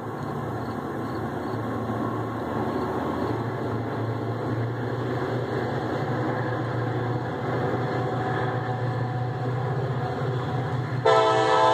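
Diesel locomotives hauling a loaded sand train run hard under load, a steady low engine drone growing slowly louder as they approach. Near the end the lead locomotive's horn starts to blow, a loud chord of several notes.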